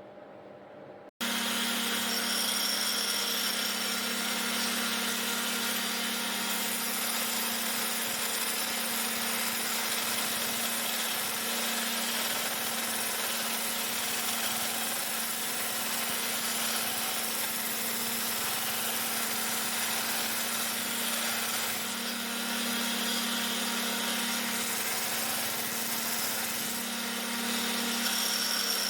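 A workshop power tool running steadily under load. It cuts in suddenly about a second in.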